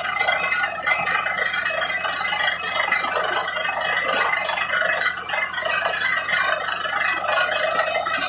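Truck-mounted borewell drilling rig running steadily while drilling, its air-driven drill blowing slurry up out of the hole.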